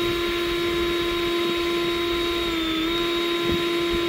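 Cordless battery-powered leaf blower running at full speed, a steady high whine, its thrust pushing a small flat car along a miniature railway track. The pitch sags briefly about three seconds in, and there is a faint knock just after.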